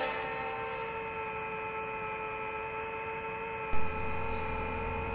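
A steady hum made of several held tones. A brief thump comes a little under four seconds in, after which a lower hum joins.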